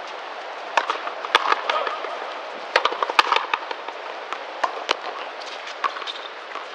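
Frontenis rally: sharp cracks of the rubber ball struck by strung rackets and slapping the frontón wall, at uneven gaps of about a second, ringing briefly off the court walls.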